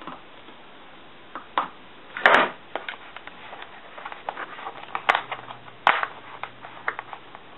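A craft knife finishing a cut through a sheet of Corex corrugated plastic, then the cut piece being lifted free and handled, giving scattered clicks and crackles of the plastic. The loudest sound is a short scrape about two seconds in, and two sharp clicks come near the end.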